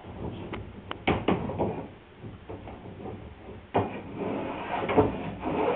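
A small hand plane shaving the edge of a wooden sailboat rail in several short strokes, each starting with a sharp catch and trailing into a scrape.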